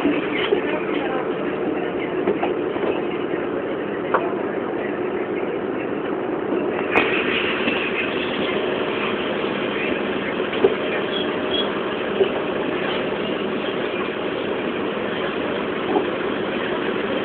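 Cabin noise inside a BMC 220 SLF low-floor city bus under way: steady engine and road noise, with a few sharp knocks and rattles from the body over a badly surfaced road.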